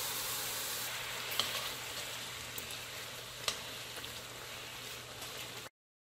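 Granulated sugar pouring in a thin stream onto sliced ginger in a nonstick wok: a soft, steady hiss with a couple of light clicks, cutting off suddenly near the end.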